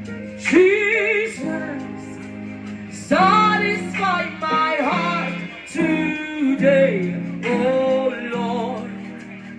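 Gospel singing: a solo voice sings sustained, melismatic phrases with heavy vibrato over steady, held instrumental chords. There are four vocal phrases, each starting loud and then trailing off.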